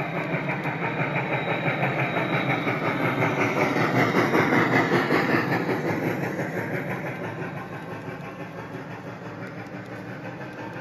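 G-scale MTH Big Boy model steam locomotive running past with its onboard sound playing fast steam chuffing over the rumble of its wheels on the track. It is loudest about four to five seconds in as the engine passes, then fades as the passenger cars roll by.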